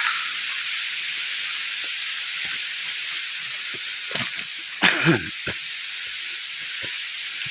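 Steady hiss of a waterfall's rushing water. A few faint knocks, and one short louder sound about five seconds in.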